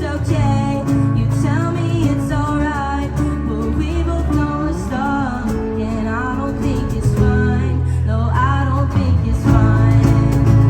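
Live band playing a song: a sung melody over guitar, with a steady low accompaniment.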